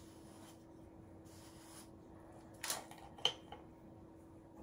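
Quiet room tone with a steady faint low hum, broken by two brief faint clicks about two and a half and three seconds in.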